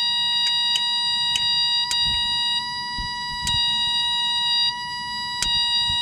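A steady, high-pitched electronic buzzer tone, as from a warning buzzer with the ignition switched on, with about half a dozen sharp clicks at irregular intervals as the distributor points of the Case 1835B skid steer's engine are snapped open and shut to throw a spark.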